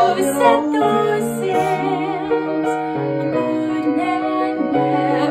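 Piano accompaniment to a show-tune duet, with a woman's voice singing long notes with vibrato over it.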